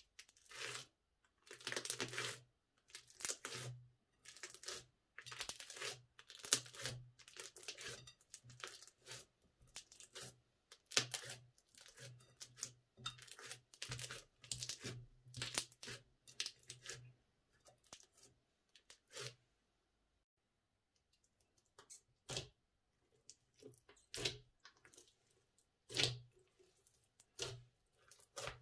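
Crunchy bead-filled slime being pressed and squished by hand in a glass dish, giving quick runs of sticky crackling and popping. The sounds come thick and fast for about the first two thirds, then stop for a few seconds, then come back as a few separate pops.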